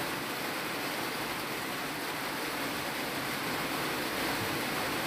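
Steady, even hiss of light rain falling, with no distinct drops or other events.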